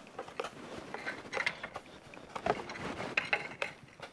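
Hand trigger spray bottle spritzing a series of short squirts at irregular intervals onto still-warm welded iron.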